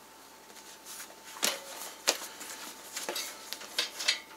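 A few short rubbing knocks and rustles of a rubber inner tube being worked by hand into a knobby dirt bike tire on a spoked rim.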